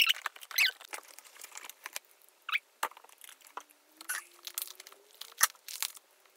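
Parcel packaging being opened and unwrapped by hand: irregular crinkling, rustling and tearing of paper around a small potted plant.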